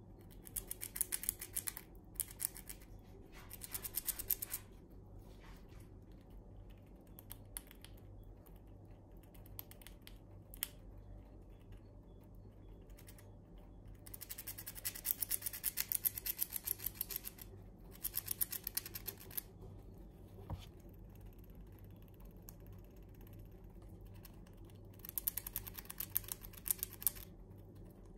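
Eurasian red squirrel gnawing through the thick shells of cedar pine nuts: rapid crunching clicks in several bursts of a second or two, with quieter pauses between.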